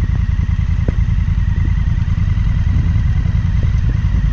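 Motorcycle engine running with a steady low rumble, a faint wavering high whine on top.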